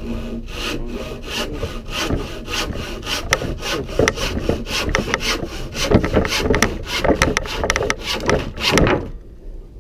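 Irwin hand saw cutting through wood in fast, even back-and-forth rasping strokes, about fourteen or fifteen strokes to saw through the piece. It stops about nine seconds in as the cut is finished.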